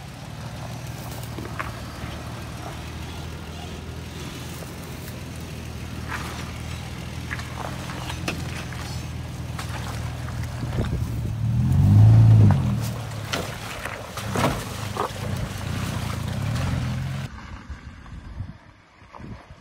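Toyota Tacoma pickup's engine running at low revs while crawling over a rough dirt trail, rising to a louder rev about twelve seconds in, with scattered short cracks and crunches from the tyres on twigs and stones. Near the end the sound cuts to a quieter outdoor background.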